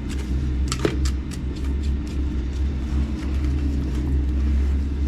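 Steady low machine hum, with one short sharp scrape or knock about a second in.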